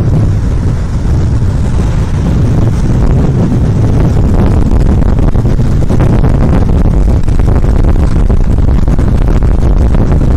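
Loud wind buffeting the microphone over a steady low rumble of rolling on asphalt at high speed, as on a downhill longboard run.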